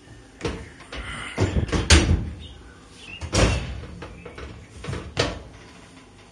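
A series of knocks and clatters of metal kitchenware, about half a dozen, the loudest and busiest cluster about one to two seconds in and single knocks near the middle and end.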